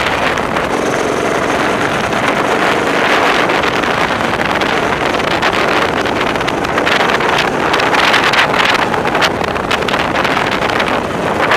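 Go-kart engine running steadily at speed, heard from a helmet-mounted camera, with wind buffeting the microphone throughout and gusting harder in the second half.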